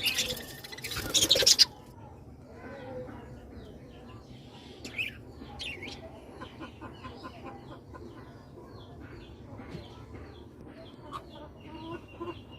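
A flock of birds chirping and calling, many short overlapping calls. A loud rustling burst comes in the first second and a half.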